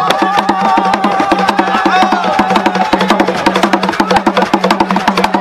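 Gule Wamkulu dance drums playing a fast, dense rhythm, with a high voice singing over the drumming during the first half.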